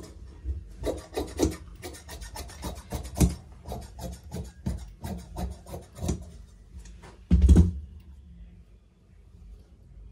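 Large tailoring scissors cutting through thin, shiny synthetic blouse fabric on a cutting table: a run of short snips, about three or four a second. A single heavier thump about seven seconds in is the loudest sound, and the snipping dies away near the end.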